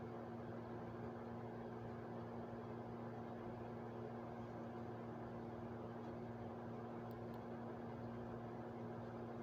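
Steady machine hum with several fixed low tones over a constant hiss, like a fan or appliance motor running.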